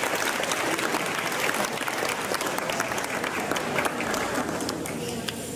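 Audience applauding, the clapping thinning and fading toward the end.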